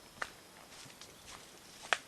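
Footsteps of a hiker walking on a mountain trail, with two sharper clicks underfoot, one just after the start and one near the end.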